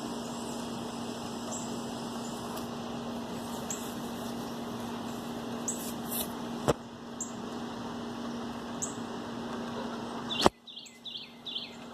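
Scattered short, high chirps of small songbirds over a steady background of noise and a constant low hum. Two sharp clicks, about seven and ten and a half seconds in; after the second the background drops off abruptly.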